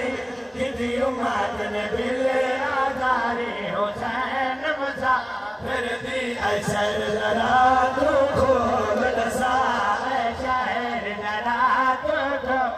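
Several voices chanting a noha, a Muharram lament, together in chorus, with a few sharp knocks.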